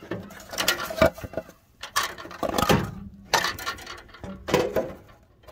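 A rusty pressed-steel rocker cover being lifted off a Ford 2.3 V6 and handled. It gives metallic clunks and scrapes in about four bursts.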